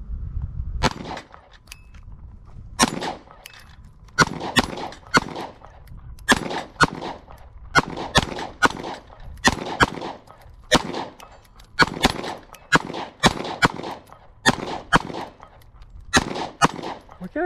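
Pistol fire: a long string of about two dozen shots, roughly one or two a second, aimed at steel plate targets.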